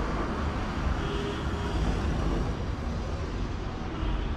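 Steady outdoor town ambience: an even hiss over a low rumble, with no distinct events.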